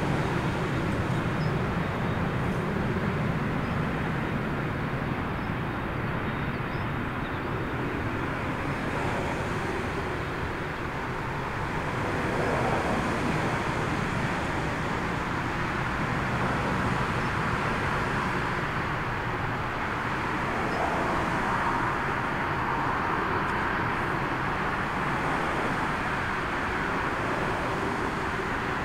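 Airbus A380's four turbofan engines running at taxi power as the jet rolls past, a steady rushing noise that swells a little about halfway through, with a faint engine whine near the end.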